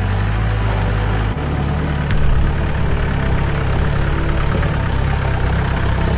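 Off-road jeep's engine running steadily under load on a steep, rough climb, its low hum shifting pitch abruptly about a second in.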